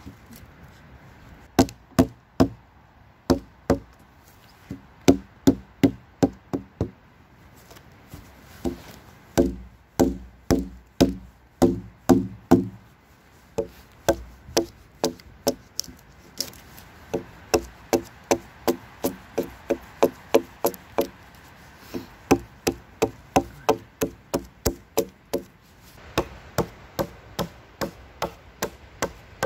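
Hatchet chopping notches into a wooden pole: a long series of sharp strikes on wood, about two to three a second, in runs broken by short pauses.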